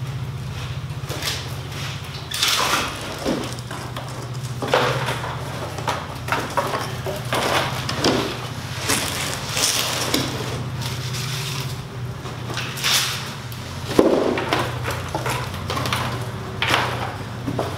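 Cardboard shipping box and packing being handled: irregular scraping, rustling and crinkling of cardboard and plastic wrap, over a steady low hum.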